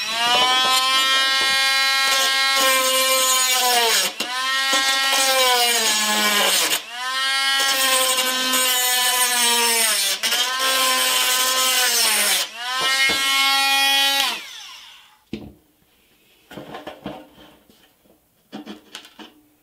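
Cordless rotary tool with a coarse grinding bit grinding the washer and lip off the end of a pressed-steel toy truck axle: a high steady whine in five runs, each spinning up and winding down, with short breaks between. It stops about 14 seconds in, and light clicks of metal parts being handled follow.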